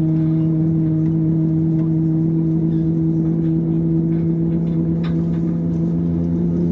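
Airbus A321neo taxiing, heard from inside the passenger cabin: the engines and cabin running as a steady hum with two unchanging low tones.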